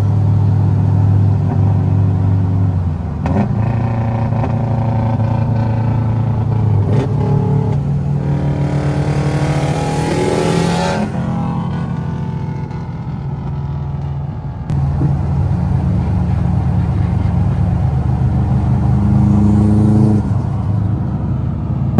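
Subaru flat-four cars running at highway speed alongside, heard from inside a car, with a steady engine drone. About nine seconds in there is a louder two-second rush with a rising note as one car accelerates by, and the sound steps up again suddenly near fifteen seconds.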